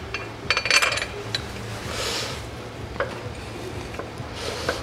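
Metal clinks and clicks of bolts and tools being handled while the upper timing-belt cover bolts are started by hand on a car engine. A quick run of ringing clinks comes about half a second in, then a few single ticks and a brief rustle.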